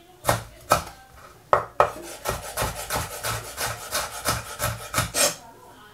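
Chef's knife dicing tomato on a wooden cutting board: a run of blade strikes on the board, a few spaced chops at first, then a quicker, even rhythm of about three a second that stops about five seconds in.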